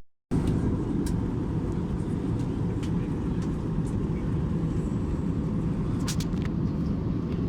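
Steady low rumble inside an Airbus A321-200 passenger cabin, with a few faint clicks.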